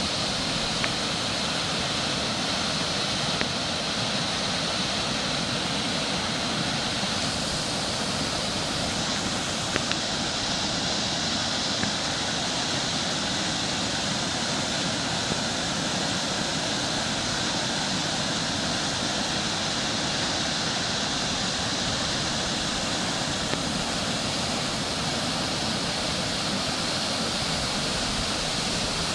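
A river in flood, its fast water rushing steadily with an even roar.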